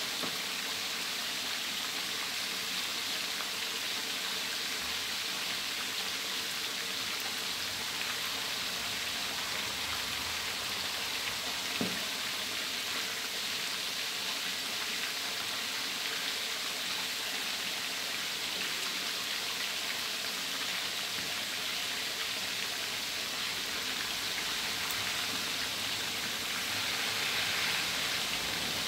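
Pieces of fermented fish (pla som) deep-frying in a wok of hot oil, with a steady, even sizzle.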